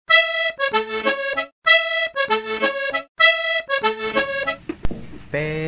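Background music: a short tune phrase played three times, each about a second and a half long, followed by a sharp click near the end.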